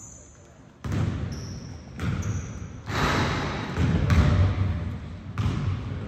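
Basketball bouncing on a gym floor amid game noise. The noise jumps up suddenly about a second in and comes and goes in several surges.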